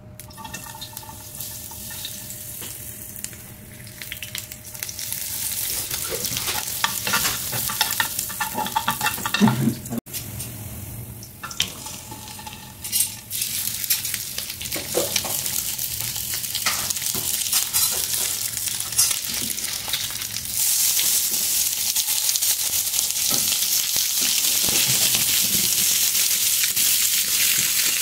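Hot oil sizzling in a non-stick frying pan on a gas burner as peeled boiled eggs and tomato slices go in. There are scattered knocks and clatters in the first half. About two-thirds of the way in the sizzle steps up and runs louder and steady.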